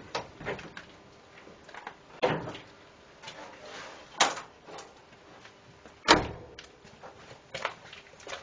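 Clicks and metal clunks of a 1951 Daimler Consort's butterfly bonnet being unlatched and one side panel lifted, a few separate knocks with a heavier thump about six seconds in.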